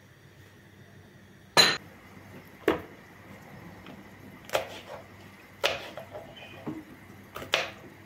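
A knife cutting long green peppers on a wooden cutting board: a handful of separate sharp knocks, roughly one a second. The loudest, about a second and a half in, is a ringing clink of kitchenware.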